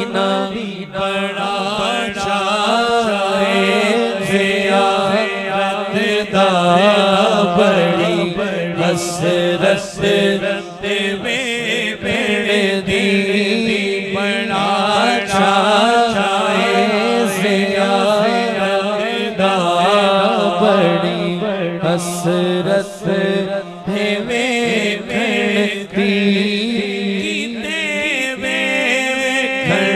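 A man singing an Urdu naat into a microphone in long, ornamented melodic lines, over a steady low drone.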